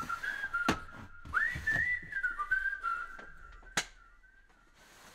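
A person whistling a tune: a single clear note that glides up and down, fading out near the end. A couple of sharp knocks sound over it, the loudest shortly before the whistling stops.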